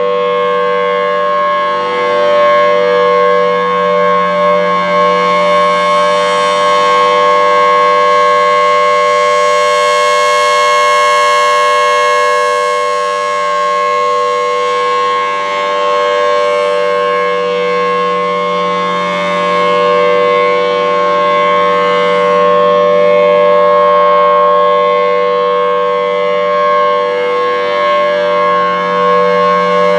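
Federal Signal Thunderbolt 1000T outdoor warning siren sounding its steady alert tone. The sound swells and fades slowly every several seconds as the rotating head turns. Its chopper is set at level 3, which lowers the pitch slightly.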